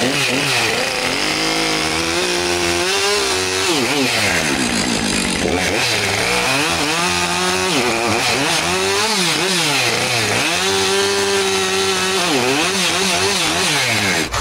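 Chainsaw running, revved up and down over and over, its engine pitch rising and falling repeatedly, as when cutting dead wood.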